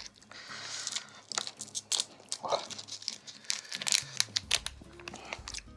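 A plastic sausage wrapper crinkling and tearing as it is opened, with scattered sharp crackles.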